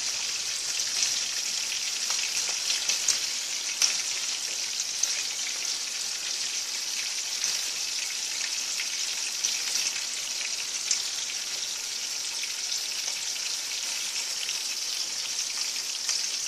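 Pork chops frying in hot oil in a pan: a steady sizzle with scattered pops.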